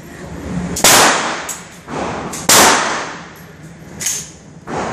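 Gunshots echoing in an indoor shooting range: two loud shots about a second and a half apart, each with a long reverberant tail, then two fainter shots near the end.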